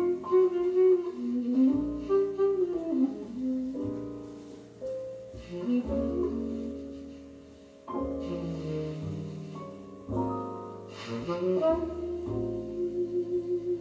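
Jazz instrumental music with a saxophone-like melody line, broadcast from an FM station and played quietly over loudspeakers by a Sansui TU-999 tuner and AU-777A amplifier.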